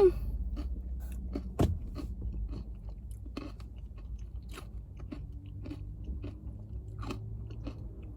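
A person chewing a mouthful of acai bowl with chocolate granola close to the microphone: irregular crunching and wet chewing clicks, with one sharper crunch about a second and a half in.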